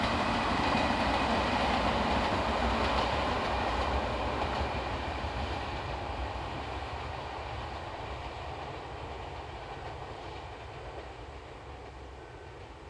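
Izuhakone Railway Daiyuzan Line electric train running along the track, loudest in the first few seconds, then fading steadily as it moves away.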